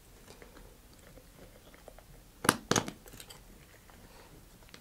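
Small handling sounds as a metal quick link is hooked onto a model rocket's front bulkhead, with two sharp clicks about two and a half seconds in, a quarter second apart.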